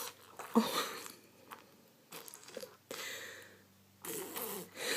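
Six-month-old baby making short, wet, spluttering mouth noises, blowing spit bubbles, in scattered bursts that grow busier near the end.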